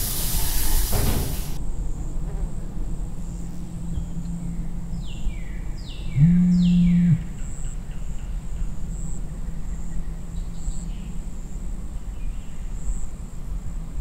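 Mobile phone vibrating: one loud, steady low buzz lasting about a second, about six seconds in, with three quick falling chirps just before and during it, over a steady low hum. A rush of running shower water cuts off early on.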